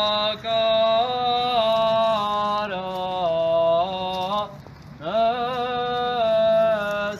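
A slow, mournful chant over a steady low drone: long held notes step downward, break off briefly about four and a half seconds in, then slide up into a new held note.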